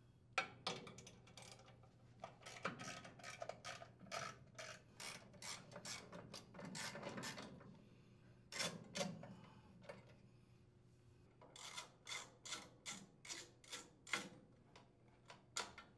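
Socket ratchet turning out the small-engine blower housing screws: a string of faint metallic clicks and scraping, with a run of separate clicks about two a second near the end.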